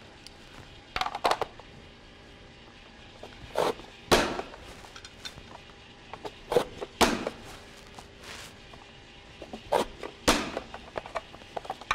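Vidalia Chop Wizard hand-pressed food chopper: a few light plastic clicks, then the lid slammed down three times a few seconds apart, each a sharp plastic clack as apple is pushed through the small blade grid.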